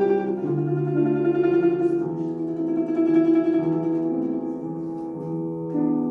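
Solo instrumental music: a melody over held lower notes, the notes changing every half second or so, in a student recital of a classical or folk-song arrangement.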